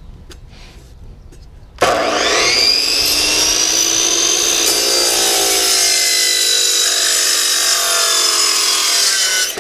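Chop saw (miter saw) switched on about two seconds in, its motor whine rising quickly to full speed, then running as the blade cuts down through a Tuttle fin box. The pitch sags slightly midway as the blade bites, and the saw cuts off at the end.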